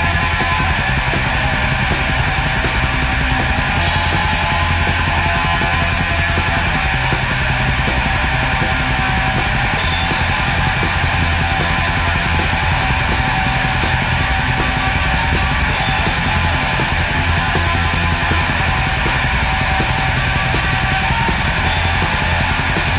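Loud, dense music at a steady level, harsh and heavy-metal-like, with a strong low end.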